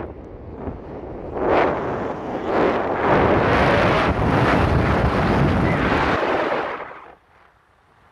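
Wind buffeting the microphone in uneven gusts, fading almost to nothing about seven seconds in.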